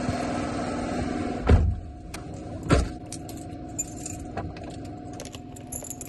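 Car keys jingling and clicking as a key is fitted into a car's ignition, after two sharp thumps a second or so apart, over a steady low hum.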